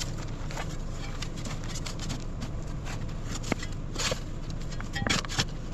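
A vehicle engine idling steadily, with scattered clicks and scrapes over it, the biggest cluster near the end.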